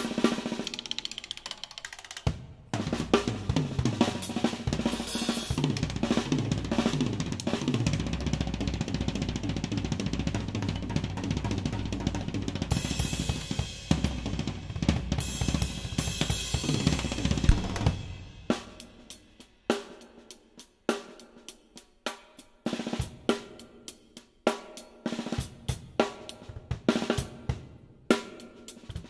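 DW Collector's Series acoustic drum kit being played, heard close from the drummer's seat. A dense stretch of fast playing with heavy bass drum and cymbals gives way, about eighteen seconds in, to separate, spaced strokes on the drums with short gaps between them.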